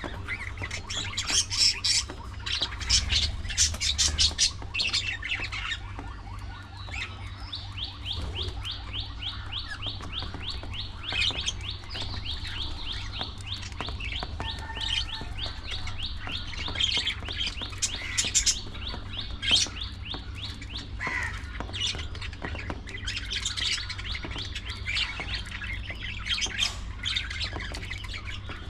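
Budgerigars chirping and squawking. In the middle comes a long fast run of short repeated chirps that lasts over ten seconds.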